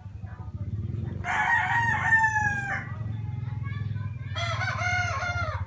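Rooster crowing twice, each crow a drawn-out call of more than a second.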